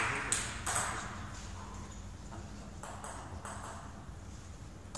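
A few faint, sharp ticks of a table tennis ball bouncing, heard over quiet sports-hall room tone, as the hall noise dies away in the first second.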